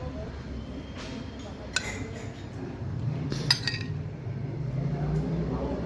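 Spoon clinking against ceramic plates and serving dishes as rice and food are spooned out, with a few sharp ringing clinks, the loudest about three and a half seconds in, over a low steady background hum.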